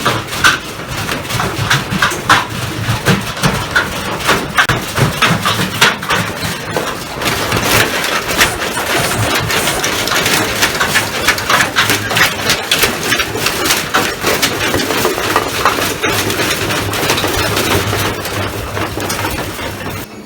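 Washing machine running with heavy, hard objects loose in its drum: fast, irregular banging and clattering of the load against the drum and cabinet over the machine's steady running hum.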